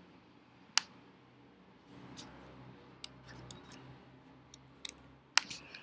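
Computer mouse and keyboard clicks while code is selected and copied: two sharp clicks, about a second in and near the end, with scattered fainter ticks between.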